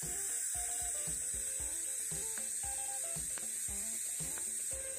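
TIG welding arc running steadily with a high, even hiss, over background music with a steady beat.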